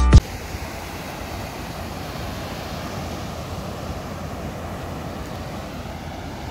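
Music cuts off just after the start, followed by a steady rush of wind and breaking surf on a beach.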